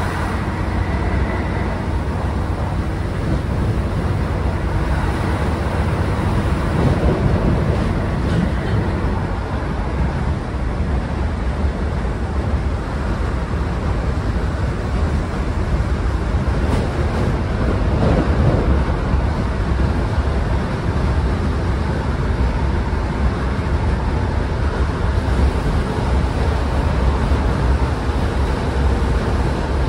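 Steady low rumble and drone inside Northern Class 150 diesel multiple unit 150214 under way, with a slight swell twice along the way.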